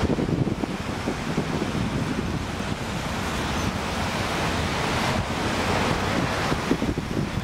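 Wind buffeting the microphone: a steady, fluttering rush heaviest in the low end.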